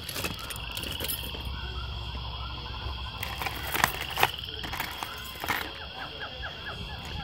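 Metal bangles and bracelets clinking and rattling as a hand rummages through a box of costume jewelry, with the sharpest clinks around four seconds in. Faint repeated chirping and a steady high-pitched tone run underneath.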